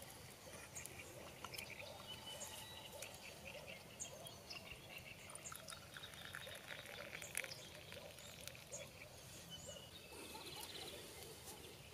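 Faint outdoor ambience of small birds chirping and calling, many short chirps scattered throughout over a steady low rumble.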